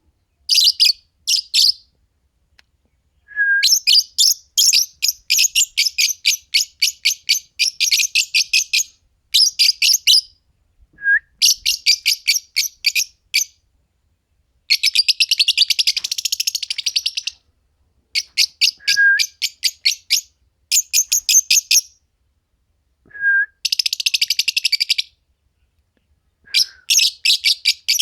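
Fischer's lovebirds chirping in rapid runs of sharp, high chirps, about six a second, each run lasting a few seconds with short pauses between. Now and then a single short, lower whistle comes in before a run.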